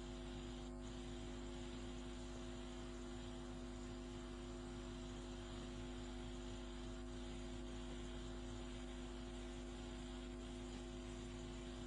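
Faint, steady electrical hum with a hiss underneath: mains hum and noise in the recording, with no other sound.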